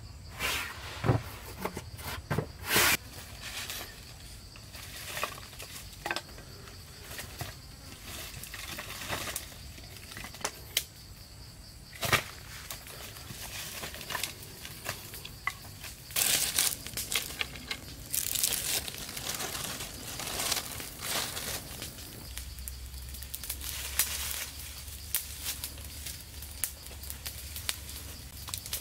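Scattered clicks, knocks and crinkling from things being handled, the sharpest near the start and about twelve seconds in, over a steady high chirring of insects.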